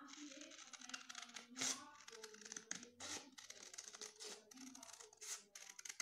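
Scissors cutting through a folded sheet of red craft paper along a curved line: a series of crisp snips, a few of them louder.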